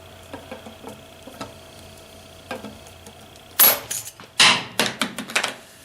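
Faint small clicks of tool work on the laser head, then about three and a half seconds in a sudden loud metallic clack as the part snaps apart, pulled by strong magnets inside, followed by a quick clatter of several more sharp clacks.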